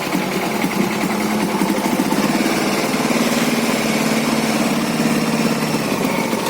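Vehicle engine running steadily, its pitch wavering a little.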